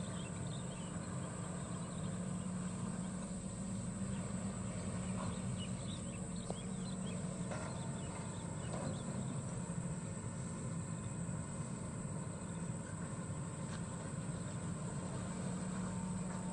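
Sany SY75 excavator's diesel engine running steadily, with faint bird chirps over it.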